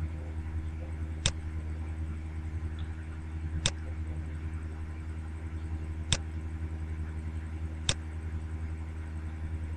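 Four sharp computer mouse clicks, spaced a couple of seconds apart, over a steady low hum.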